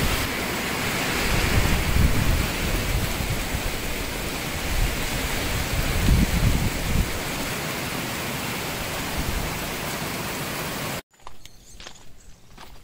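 Wind buffeting the phone microphone in gusts over a steady hiss. It cuts off abruptly about eleven seconds in, leaving a quiet background with a few light footsteps on gravel.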